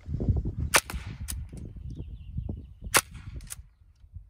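Sig Sauer Virtus .22 PCP air rifle firing two shots about two seconds apart, each a sharp, quite loud crack from the unsuppressed muzzle, followed about half a second later by a fainter tick.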